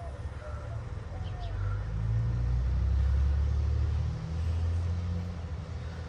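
A motor vehicle passing by: a low engine rumble that swells to its loudest about three seconds in and then fades. Birds chirp briefly near the start.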